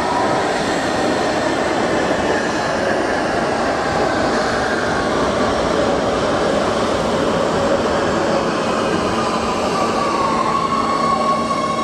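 Oslo Metro MX3000 train running in along the platform and braking: steady wheel-on-rail noise with an electric drive whine that falls in pitch as the train slows.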